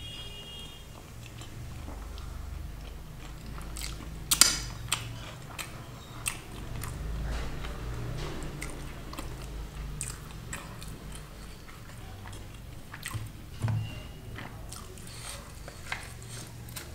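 Close-miked eating sounds: a mouthful of paneer curry and lachha paratha being chewed, with wet smacks and scattered crisp clicks and one loud crunch about four seconds in.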